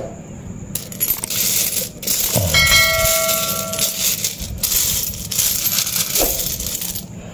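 Loose metal coins clinking and sliding against each other as they are rummaged through by hand, with one coin ringing clearly for about a second and a half, starting about two and a half seconds in.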